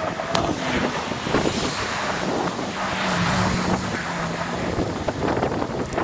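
Wind buffeting the microphone of a camera riding on a fast-moving electric scooter, mixed with street and traffic noise. A low steady hum comes in for about two seconds in the middle.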